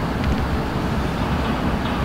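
Freight train led by a diesel locomotive, a steady low rumble as it approaches along the tracks, heard through the station's glass wall.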